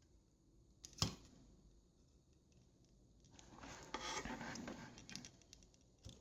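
Faint handling of small tools at a soldering bench: a single sharp click about a second in, then scratching and rubbing for about two seconds.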